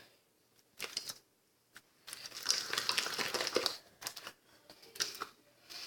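Hands kneading and pulling sticky homemade slime that is being worked with activator. The sound comes in short bursts, with a longer stretch about two seconds in; the slime is still sticking to the hands and the pot.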